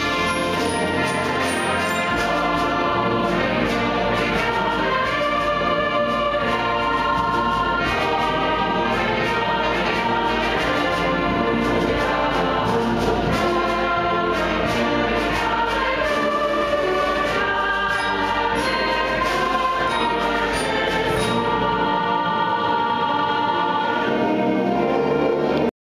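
Choral music, a choir singing with orchestral accompaniment, which cuts off suddenly near the end.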